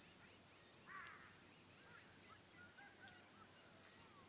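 Near silence, with faint bird calls in the background: scattered short chirps, the clearest about a second in.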